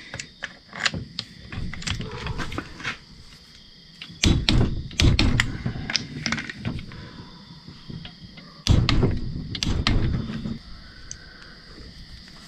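Hand tools working the crankcase bolts of a two-stroke engine: a run of irregular sharp metallic clicks and knocks as the bolts are tightened, with two louder, fuller stretches about four and nine seconds in.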